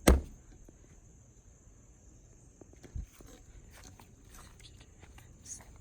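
Footsteps walking outdoors, with a heavy thump right at the start, light scattered clicks and a softer thump about three seconds in. A steady high-pitched drone runs underneath.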